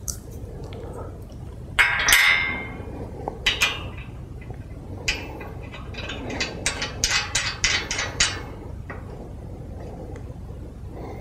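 Nut, bolt and spanner clinking against the iron bed frame's leg lug as the bolt is fitted and tightened: a ringing metal clink about two seconds in, then a run of quick sharp clicks from about five to eight seconds in.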